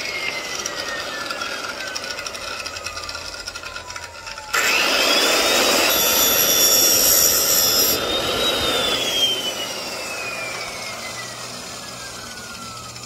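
Electric drill running in wood: its motor whine sinks slowly as it works, then surges louder and higher about four and a half seconds in. It holds there for a few seconds, then slows and falls again.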